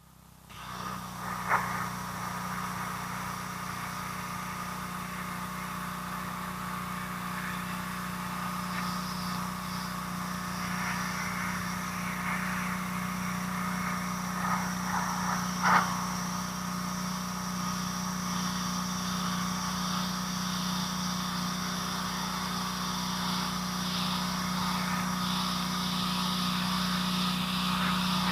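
A steady motor hum holding one pitch, with a sharp knock about a second and a half in and another around sixteen seconds in.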